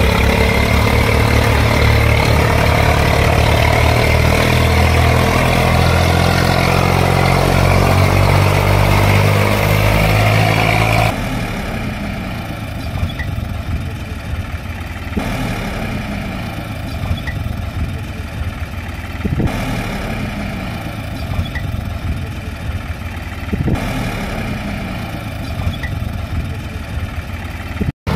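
Tractor engine running, its pitch rising steadily for about eleven seconds, then dropping suddenly to a quieter idle that repeats in an even cycle about every four seconds, like a looped engine recording.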